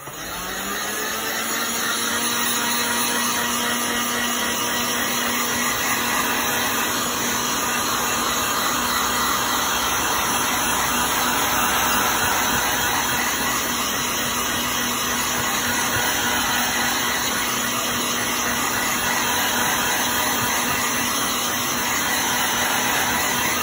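Heat gun blowing hot air to dry wet watercolour paint: a steady loud rush of air with a motor hum, rising in pitch as it spins up at the start and then holding even.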